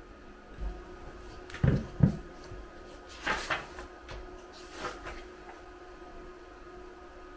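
Two sharp knocks close together on a wooden table about two seconds in, after a softer one, then the rustle and light taps of a paperback book being picked up and opened.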